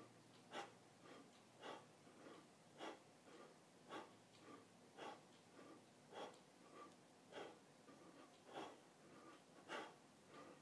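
Faint, rhythmic breathing of a man doing push-ups: a sharp exhale about once a second, with quieter breaths between.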